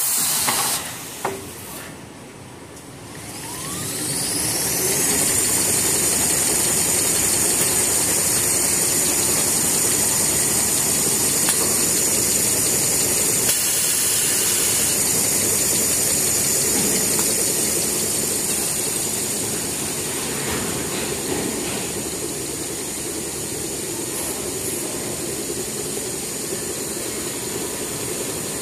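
Big toilet roll paper machine: a brief loud noise at the start, then its drive whines up in pitch over a couple of seconds as it comes up to speed. It then runs steadily with a high whine over a broad mechanical noise, dropping slightly in level near the end.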